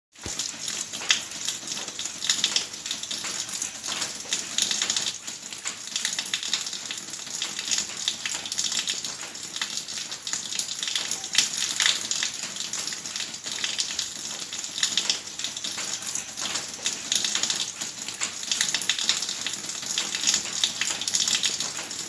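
Water from a spout (pancuran) pouring and splashing into water-filled tubs: a steady hiss of falling water broken by many small irregular splashes and drips.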